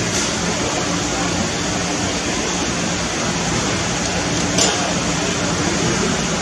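Steady rushing background noise with a faint low hum under it, and one short click about four and a half seconds in.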